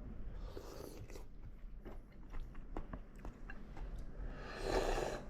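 Close eating sounds: small mouth and utensil clicks, then a short noisy sip of fish-bone soup (arajiru) near the end.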